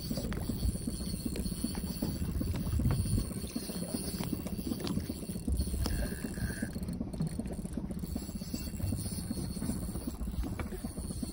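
Steady low rumbling noise aboard a small fishing boat, with a short high tone about six seconds in.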